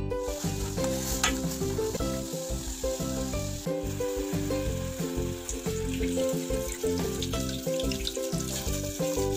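Water boiling in an aluminium saucepan over a portable gas stove's burner: a steady hiss, with a short sharp clink about a second in. Background music with a melody plays under it.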